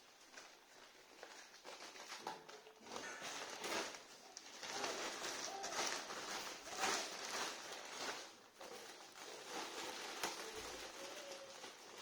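Irregular rustling and handling noises with occasional clicks as a braided PVC garden hose and its plastic packaging are unpacked.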